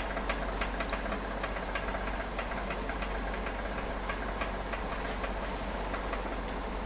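Oxy-acetylene welding torch flame hissing steadily, with irregular small crackles, while aluminum with flux is welded.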